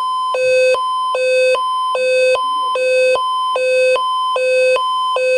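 Radio station's two-tone electronic alert signal, alternating evenly between a low and a high pitch an octave apart about every 0.4 s. It is the attention signal at the head of a severe thunderstorm warning broadcast on 890 AM WLS.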